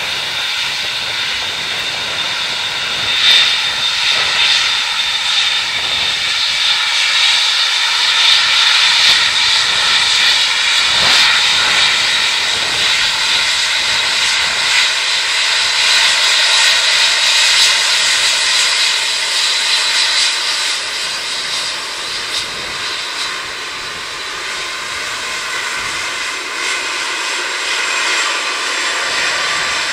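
Airbus A380's four jet engines whining at taxi power as the airliner rolls past, with a steady high whine over a rushing hiss. It grows louder toward the middle and eases off slightly near the end.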